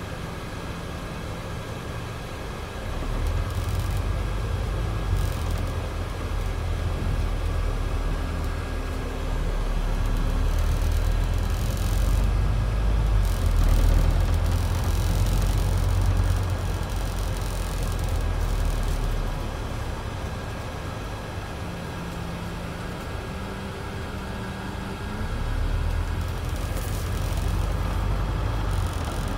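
Scania double-decker bus engine heard from inside the upper deck: idling at first, then pulling away about three seconds in and running under load, easing back around twenty seconds in and picking up again near the end.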